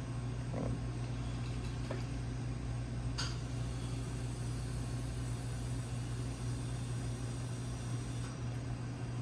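Steady low hum of running machinery, with a faint short click about three seconds in.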